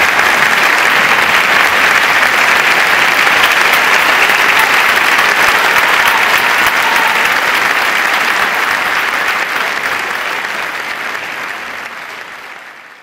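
Audience applauding steadily, fading out over the last few seconds.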